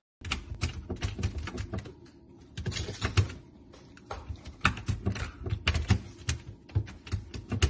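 A puppy scrabbling at an open fridge freezer drawer: quick, irregular clicks and taps of claws and paws on the plastic drawer and tile floor, coming in flurries with a brief pause about two seconds in.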